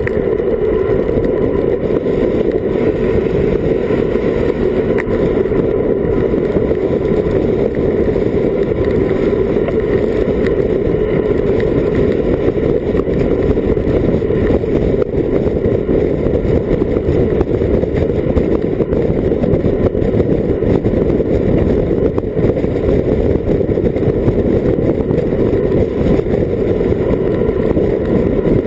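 Steady, loud wind rush on a bike-mounted action camera's microphone as a road bike descends at about 45–50 km/h.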